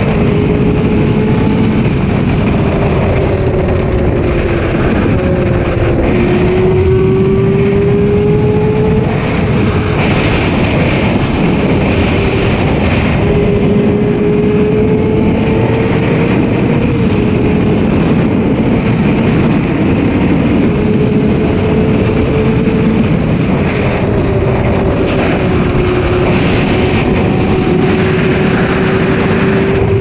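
Sport-bike engine running at steady high revs under way, its pitch dipping about five seconds in and climbing back, with gentler dips later. Heavy wind rush on the microphone from riding at speed.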